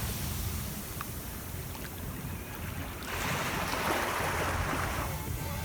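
Wind and sea noise over a steady low rumble, with a rush of surf swelling up about three seconds in and lasting a couple of seconds.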